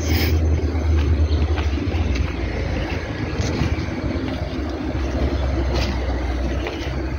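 Low, fluctuating rumble of wind buffeting a phone's microphone while walking outdoors.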